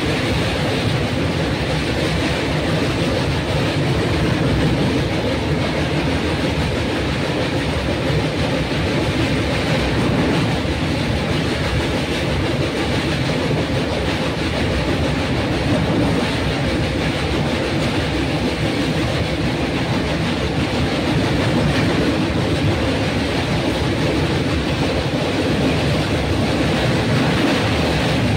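A train running at a steady pace, heard as an even, unbroken noise that does not rise or fall.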